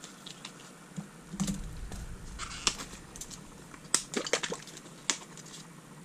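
Scattered light clicks and taps of plastic paint tubes and a paint bottle being capped, set down and picked up, busiest in the middle few seconds.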